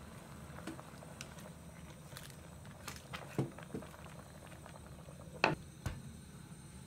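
Chopsticks clicking against a ceramic donabe clay pot as ingredients are added. About five and a half seconds in comes a sharp clack as the ceramic lid is set on the pot, then a lighter knock just after, over a low steady hiss.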